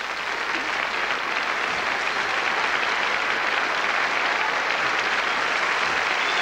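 An audience applauding, the clapping building over the first second and then holding steady.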